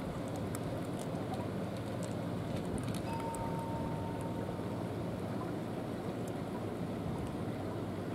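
Steady wind noise on the microphone over a low outdoor rumble, with faint scattered ticks in the first few seconds.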